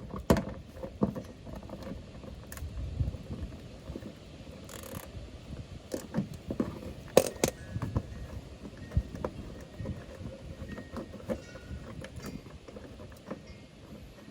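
Irregular metallic clicks, knocks and clinks of hand tools and screws while the long screws holding a car's underbody panel are undone.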